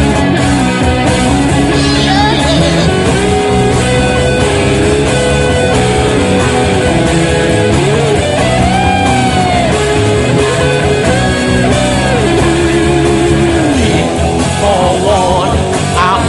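Rock music with guitar, held at a steady loud level, with notes that slide up and down through the middle.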